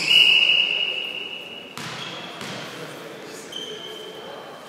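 A referee's whistle blowing one loud, long, steady blast of about a second and a half, then a knock, then a fainter, shorter steady whistle near the end: between volleyball rallies.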